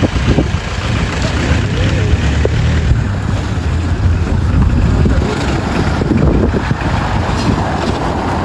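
Wind buffeting the microphone: a loud, steady, blustery rumble with rough hiss over it.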